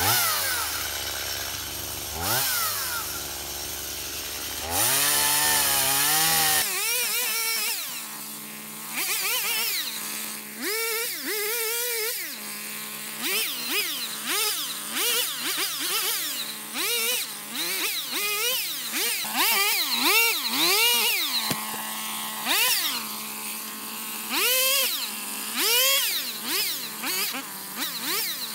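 Stihl MS 170 chainsaw, a small two-stroke, revving again and again as it cuts through brush and small saplings. Its pitch sweeps up and down with each blip of the throttle.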